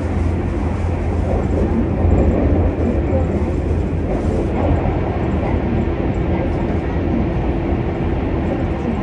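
Steady running noise of a Keisei Skyliner express train at speed, heard inside the passenger cabin: a low, even rumble of wheels on rail and the drive, with no breaks.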